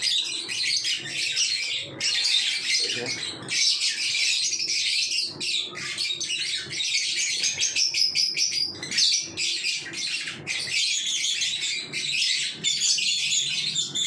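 A room full of caged lovebirds chattering: a dense, continuous mass of high, overlapping chirps and squeaks from many birds at once.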